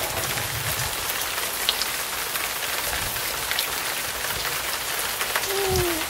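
Steady rain falling on a wet paved street: an even hiss dotted with many small drop impacts. A short falling voice-like tone comes near the end.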